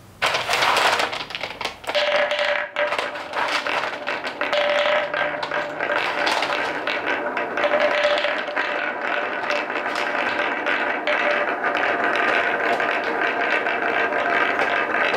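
Solid wooden balls rolling along the grooves of a plywood marble track: a continuous rolling rumble with dense clicking and clacking as the balls knock against each other and the groove walls. It starts suddenly just after the start and is loudest in the first two seconds.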